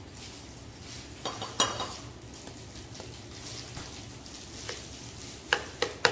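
Metal clinks and scrapes of a spoon stirring minced meat in a stainless steel mixing bowl, with a small steel bowl being handled: two sharp clinks about a second and a half in, and a quicker run of clinks near the end.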